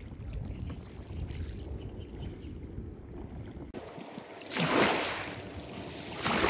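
Wind rumbling on the microphone beside a lake, with water noise. After an abrupt cut past the middle, two louder rushing gusts come, the first the loudest.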